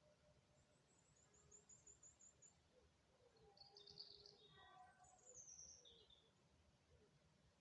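Faint bird calls: a rapid high trill, then a cluster of chirps and a downward-sliding high whistle.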